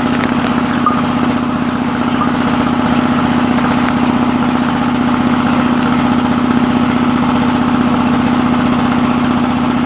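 An engine running steadily at an even speed: a continuous drone that holds one pitch without revving up or down.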